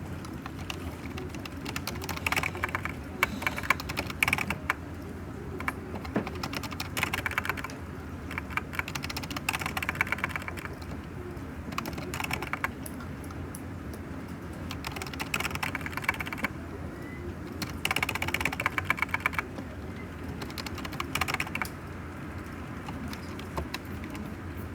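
Typing on a computer keyboard in bursts of a second or two, with short pauses between, over a steady low hum.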